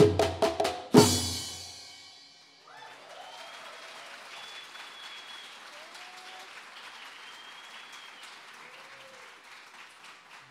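A percussion ensemble plays its last few strikes and ends on a final hit about a second in that rings out. Then the audience applauds, with a few whoops and cheers.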